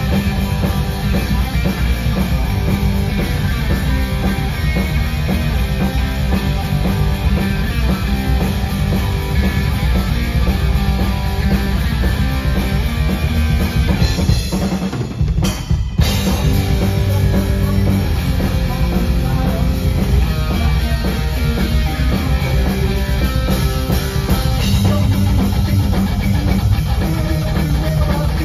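Heavy metal band playing live: distorted electric guitar, bass guitar and a pounding drum kit in an instrumental passage. About halfway through, the band stops briefly for about a second, then comes back in at full volume.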